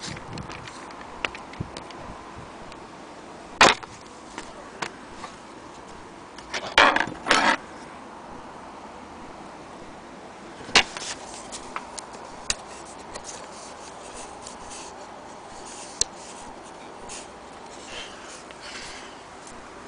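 Scattered clicks and knocks of objects being handled, over a steady hiss, with a short cluster of louder knocks about seven seconds in.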